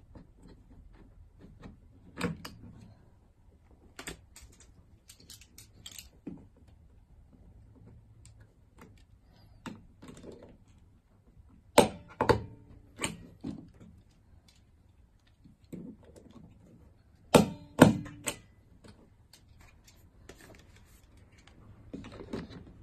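A handheld stapler snapping staples through a 3D-printed plastic tablet mount into the wall: sharp clicks, loudest as four quick strikes about twelve seconds in and two more about seventeen seconds in, with quieter clicks and plastic handling sounds between.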